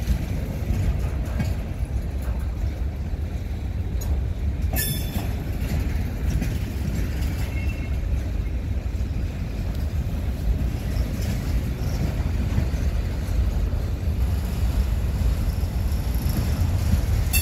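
Freight cars of a Norfolk Southern manifest train rolling past in a steady low rumble, with one brief sharp click about five seconds in.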